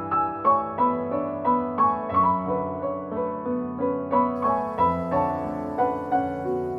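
Background piano music: a gentle melody of evenly paced single notes over sustained lower notes.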